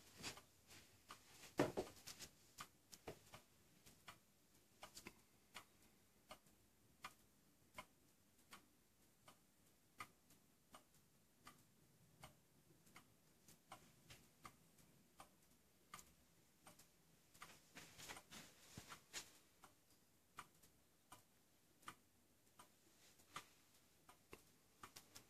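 Circa-1860 Fr. Hofler Vienna regulator wall clock ticking: the weight-driven movement's deadbeat escapement gives faint, evenly spaced ticks, about three every two seconds, showing the clock in beat and running. One louder knock comes about two seconds in.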